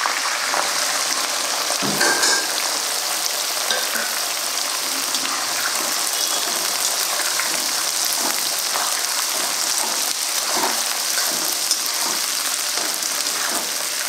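Chopped onions tipped into hot oil in a metal kadai about two seconds in, then frying with a steady sizzle while a metal ladle stirs and scrapes through them.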